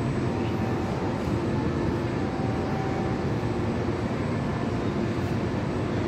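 Steady low rumble of downtown city noise, with faint, distant church bells ringing above it.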